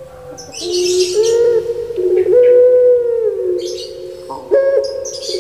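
Puter pelung dove (Barbary dove) cooing: long, drawn-out low notes, each held about a second with slight pitch glides, several running into one another. Brief hissy sounds come between the notes.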